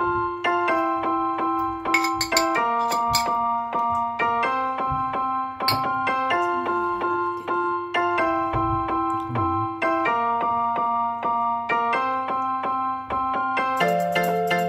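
Background music: held keyboard chords that change every second or two.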